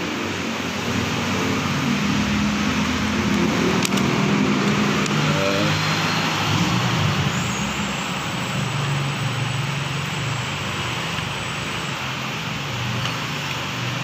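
A motor vehicle engine runs in the background over a steady hiss, its pitch rising and falling. It is a little louder between about two and seven seconds in.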